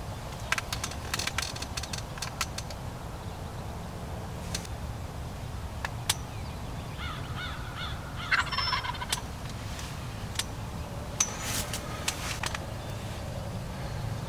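Wild turkey gobbler gobbling in rattling bursts: one shortly after the start, one in the middle and one near the end. A steady low wind rumble runs underneath.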